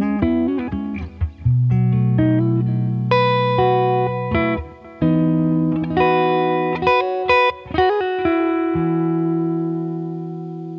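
SQOE SETL980 Telecaster-style electric guitar played through an amp: picked single notes and short phrases with some held notes, ending on a chord left to ring and slowly fade.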